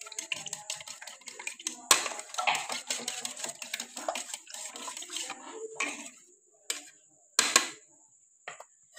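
Raw egg being beaten in a ceramic plate with a metal utensil: rapid clinking and scraping of metal on the plate for about five seconds, then a few separate clinks and knocks.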